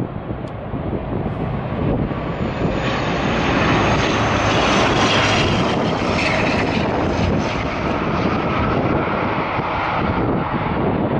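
A passenger aircraft's engines as it passes close by: a broad rush that builds over the first few seconds, stays loudest through the middle and eases slightly near the end.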